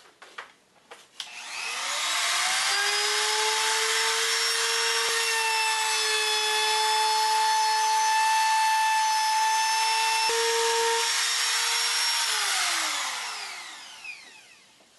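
Hand-held compact router with a roundover bit, switched on and spinning up with a rising whine, then running steadily while rounding over the top edge of a Douglas fir board. Near the end it is switched off and winds down with a falling whine. A few light knocks come before it starts.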